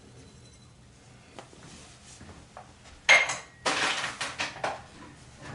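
Hard clattering at a porcelain toilet tank: a sharp clink about three seconds in, then about a second of rattling, as the cup of citric acid is tossed into the tank.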